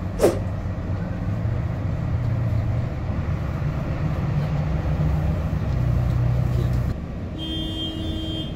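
Double-decker tour bus running, heard from on board: a steady low engine and road drone. A brief sharp sound comes about a quarter second in. Near the end the rumble drops and a steady tone sounds for about a second.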